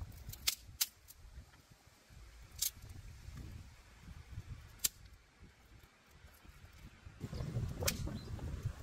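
A wood campfire gives a few sharp, widely spaced pops and crackles over a low outdoor rumble. The rumble grows louder about seven seconds in, with wind on the microphone.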